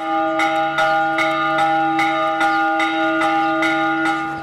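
Metal temple bell struck over and over at an even pace, about two or three strokes a second, each stroke ringing on into the next.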